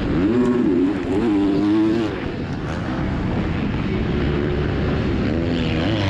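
Onboard sound of a KTM 250 SX-F four-stroke motocross engine, its revs rising and falling with the throttle in the first couple of seconds, then running lower as the bike slows for the turns.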